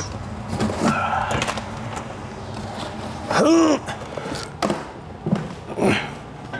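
Cardboard delivery boxes being picked up and carried, with a series of knocks and clatters. About halfway through comes one short squeak that rises and falls in pitch, the loudest sound here.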